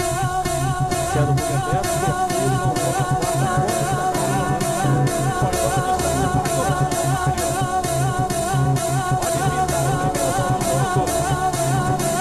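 A song with singing over a steady drum beat, about two beats a second, with guitar.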